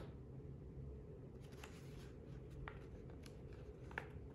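Quiet room tone with a few faint clicks, one right at the start and a couple near the end, as a hand moves over the page of a book.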